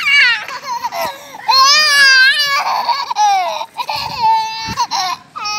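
A young child's high-pitched, crying-like squeals and whines: several drawn-out wavering calls that slide up and down in pitch.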